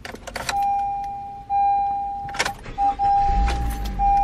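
Car warning chime ringing one steady tone about once a second, each ring fading before the next. It comes with clicks and rattles, such as keys or a seatbelt, at the start and a little past two seconds in, and a brief low rumble about three seconds in.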